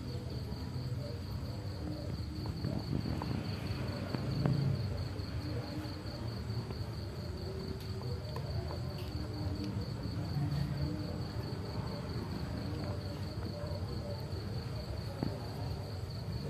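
A cricket trills steadily in a fast, even pulse, over cats eating cooked rice from a metal tray, with occasional soft chewing clicks and low background noise.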